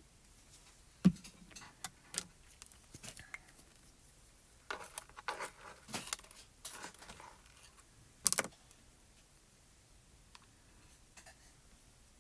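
Die-cut cardstock pieces being handled and fitted together on a craft table: scattered taps, clicks and paper rustles, with a sharp knock about a second in and a brief crinkle a little after eight seconds.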